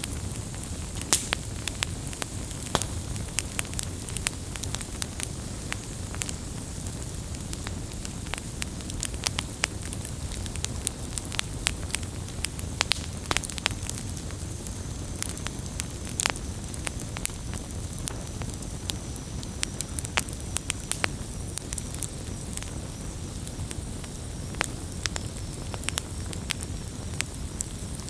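Wood campfire burning: a steady low rumble of the flames with frequent sharp, irregular crackles and pops of burning wood.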